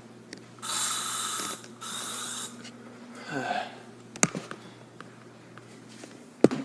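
Aerosol can of disinfecting spray released in two hissing bursts, the first about a second long and the second shorter. Two sharp clicks follow, the louder one near the end.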